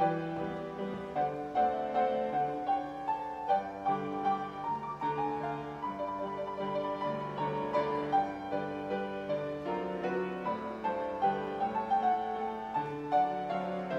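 Grand piano played solo: a flowing run of sustained notes and chords.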